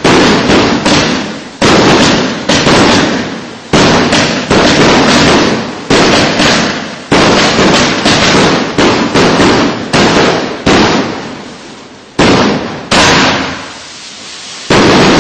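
A 49-shot firework battery of 30 mm (1.2-inch) shells firing in rapid succession: a string of loud bangs, a few a second, each trailing off. There are two short lulls near the end.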